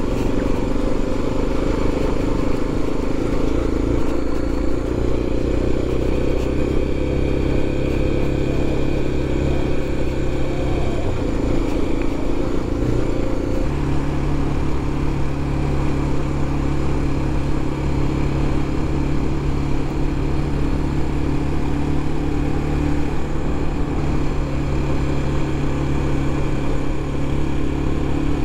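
BMW F700GS parallel-twin motorcycle engine running steadily under way, with wind and road noise. The engine note steps up in pitch about halfway through.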